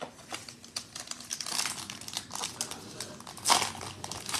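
Foil wrapper of a 2021 Panini Prizm football card pack crinkling and tearing as it is picked up and ripped open by hand. The crackling is loudest a little past three and a half seconds in.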